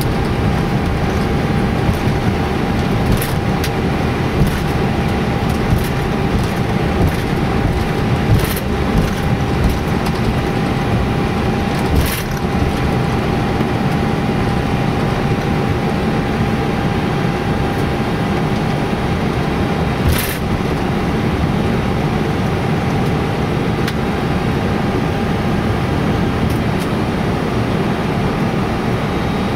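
Airbus A321 taxiing with its engines at idle, heard from the cockpit: a steady rumble and hiss with a faint constant hum, broken by a few short knocks.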